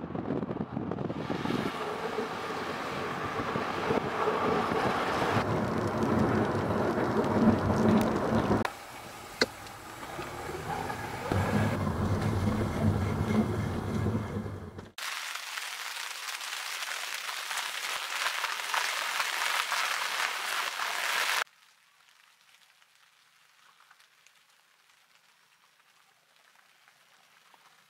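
Background music over driving sounds, then about six seconds of steady rain hiss on a vehicle's windshield that cuts off suddenly, leaving near silence.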